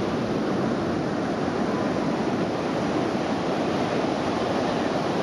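Ocean surf breaking on a sandy beach in a strong wind, with wind buffeting the microphone: a steady, even rush of noise with no distinct events.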